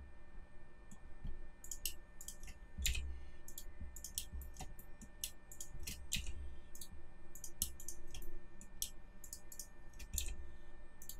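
Computer mouse buttons and keyboard keys clicking irregularly, often several clicks a second in quick clusters, over a faint steady electrical hum.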